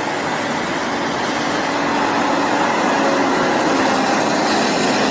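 Bus engine sound effect: a steady, noisy engine rumble with a faint low hum, starting abruptly.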